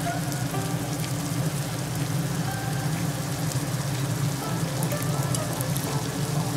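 Onions, tomatoes and green chillies frying in oil in a pot, a steady sizzle with fine crackles, over a steady low hum.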